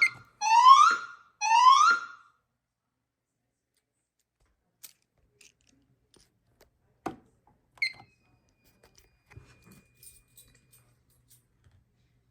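Fire alarm voice evacuation speaker sounding its rising electronic whoop tone, twice at the start, between spoken evacuation messages. It then stops, leaving near quiet with a few faint clicks, the sharpest about seven seconds in.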